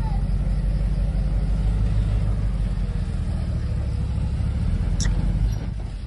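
Dump truck's diesel engine running as the truck reverses along a dirt track, a loud low rumble that eases about five and a half seconds in. A short sharp click about five seconds in.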